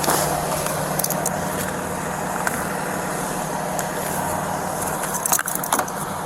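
Steady motor-vehicle noise: an engine running with a low hum and a wash of road noise, broken by a few sharp clicks and knocks near the end.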